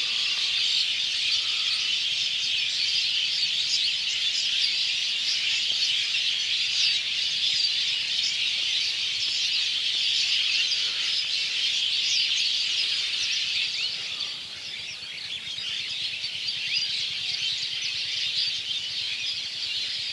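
A flock of sparrows chirping together, a dense, continuous chatter of many overlapping short calls. It eases off slightly about 14 seconds in, then picks up again.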